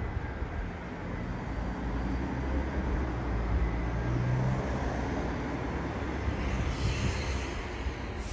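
Low, steady outdoor rumble, swelling slightly about halfway through.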